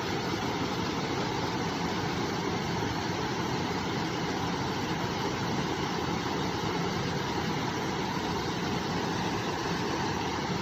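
A river flowing, a steady even rush of water with no breaks or changes.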